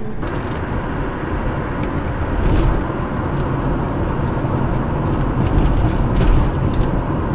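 Car driving along a road, heard from inside the cabin: a steady rumble of engine and tyre noise that swells slightly a couple of times.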